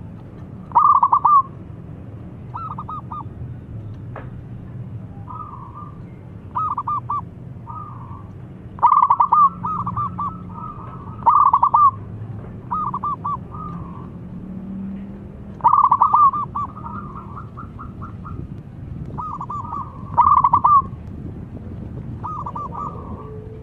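Zebra dove (perkutut) cooing: short bursts of rapid stuttering coos, recurring every one to three seconds, over a steady low hum.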